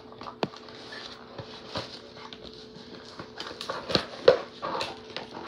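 Packaging of a Bop It toy being handled and opened: scattered clicks, rustles and crinkles of cardboard and plastic, busiest about four seconds in, over a faint steady hum.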